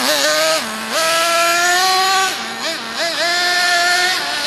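Motor of a 1:10 Kyosho Fazer RC car running at high revs, its pitch climbing and holding as it is throttled up, then dropping off as the throttle is released, several times over, with a few quick blips about halfway through.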